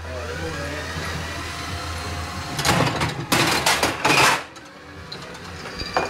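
Electric motor of a homemade beer-dispensing fridge mechanism humming steadily, with three loud bursts of rattling in the second half. The hum cuts off about four and a half seconds in.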